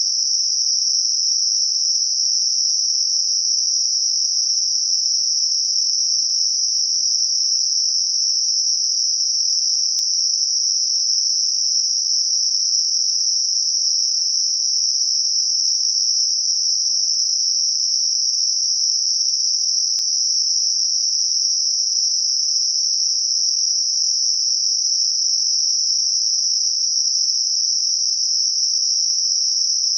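Steady, even, high-pitched hiss: computer-generated Gaussian narrow-band noise centred on 5.5 kHz, a tinnitus masker.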